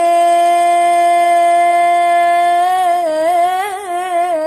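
A solo singer's voice holding one long sung note, unaccompanied, steady for about two and a half seconds and then breaking into quick wavering ornaments around the same pitch.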